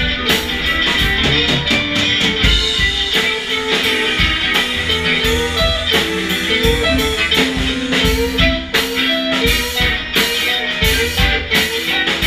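A live band jams together: electric guitars play melodic lines over a drum kit keeping a steady beat.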